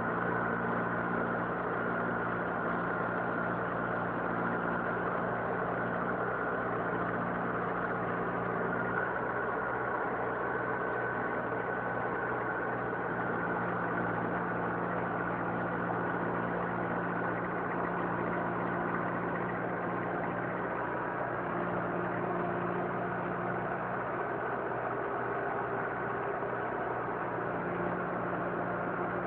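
Diesel engine of a tractor-mounted backhoe loader on a Mahindra Arjun 605, running steadily at an even speed.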